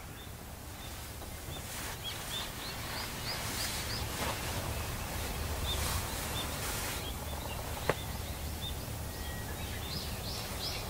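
Small birds chirping outdoors in runs of short, high calls through the tent walls, with soft rustles of nylon down sleeping bags as the two campers move in them. A single sharp click comes about eight seconds in.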